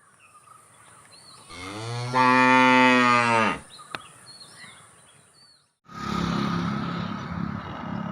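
A dairy cow mooing once, a single loud low call about two seconds long. Near the end a steady mechanical noise with a hum starts suddenly and keeps going.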